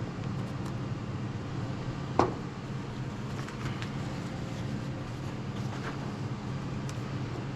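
Steady low background hum, with one sharp click about two seconds in and a few faint light taps after it, the sounds of small parts being handled at a workbench.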